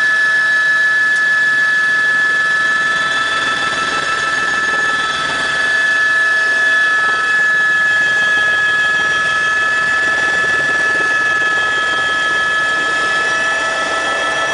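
Helicopter turbine engine and rotor heard from inside the cabin: a steady high-pitched turbine whine over a constant engine noise, as the helicopter descends to land on its pad.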